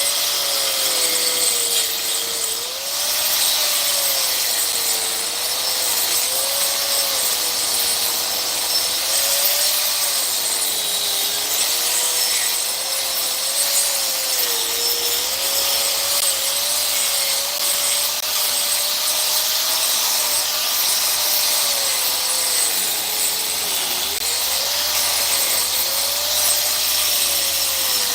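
Electric power tool running continuously, its motor pitch wavering up and down as the load on it changes.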